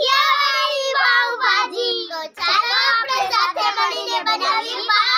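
A group of young girls singing together in unison, several children's voices overlapping, with a brief break about halfway.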